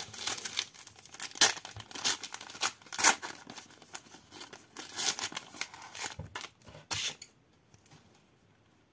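A Turbo Attax trading-card pack wrapper being torn open and crinkled: a run of sharp rips and crackles that stops about seven seconds in.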